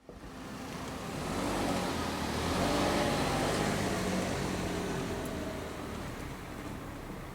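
A car engine running steadily, growing louder over the first three seconds and then slowly easing off.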